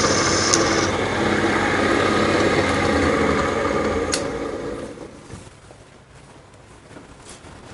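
Drill press motor running steadily as its bit drills out a brass rivet in a clutch hub. About four seconds in comes a click, and the motor runs down and goes quiet.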